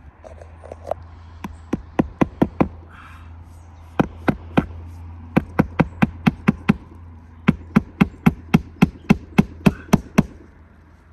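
Hammer driving roofing nails into asphalt shingles by hand: four runs of sharp strikes, about four a second, with short pauses between nails.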